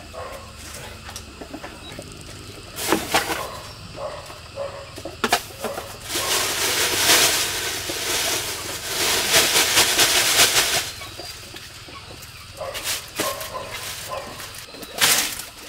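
A few sharp knocks of wood against bamboo, then a plastic bag rustling loudly for about five seconds, then more knocks near the end.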